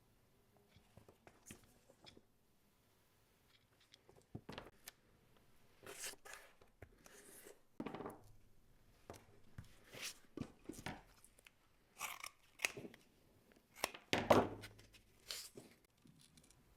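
Leather scraps being handled on a workbench: scattered rustles, scrapes and light knocks, sparse at first and busier from about four seconds in.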